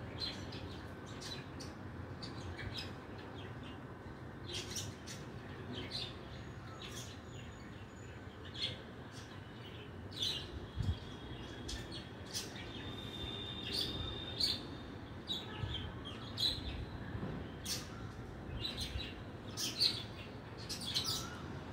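Birds chirping in short, irregular calls over a low, steady background rumble.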